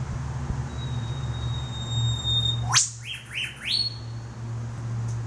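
Eastern whipbird pair duetting. The male gives a long, steady, high whistle that ends in a sharp upward whip-crack. The female answers at once with a few quick short notes and a final rising note, so quickly that it sounds like one bird. A steady low hum runs under the calls.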